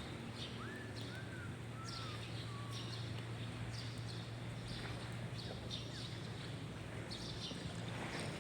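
A bird whistles four short arched notes, one after another, in the first three seconds. Short high chirps repeat throughout over a steady low hum.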